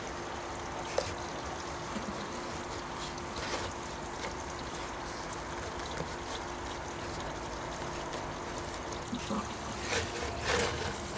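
Small plastic clicks and taps as a hose fitting is twisted and snapped into the plastic base of a camping gas lantern, over a steady background hiss. The sharpest click comes about a second in.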